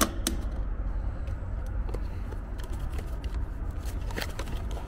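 A few light clicks and rustles from a small cardboard parts box being handled, most of them near the end, over a steady low rumble.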